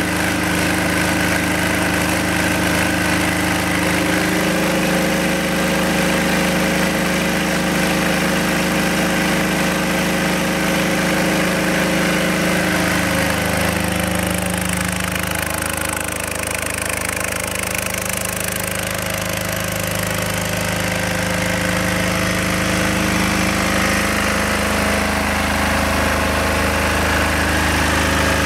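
Hyundai DHY8000SELR silenced diesel generator running steadily at its fixed 3000 rpm. The engine note is constant, shifting slightly in tone a few times.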